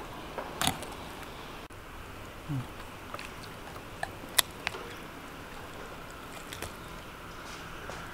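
Knife cutting through a grilled whole chicken on a wooden cutting board, with scattered sharp clicks and knocks of the blade and handling; the loudest click comes a little past the middle.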